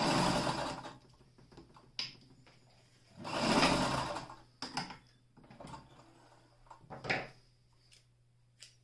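Alfa Model 42 electric sewing machine stitching in two short runs of about a second each, the second about three seconds in. Softer handling sounds follow as the cloth is drawn out and the thread is cut with scissors, and a steady low hum runs underneath.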